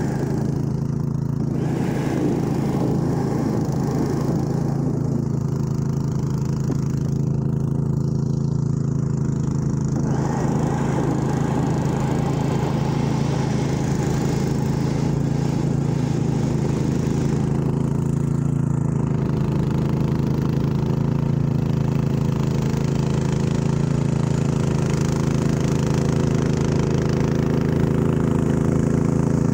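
Snow blowers running steadily while clearing deep snow: the small engine of a two-stage gas snow blower and the motor of a corded electric single-stage snow thrower, together giving a constant low hum that grows a little louder near the end.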